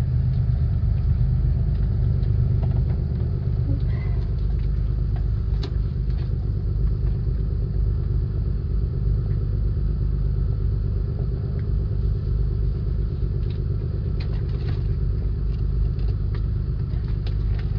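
Steady low engine-like rumble with a constant droning hum, and a few faint clicks and taps.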